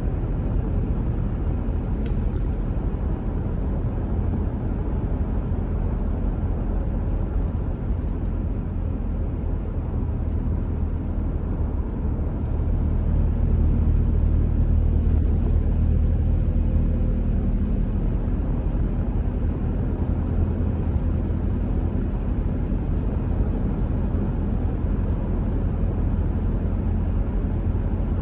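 A car driving at a steady speed: the continuous low rumble of its engine and tyres on the road, a little louder around the middle.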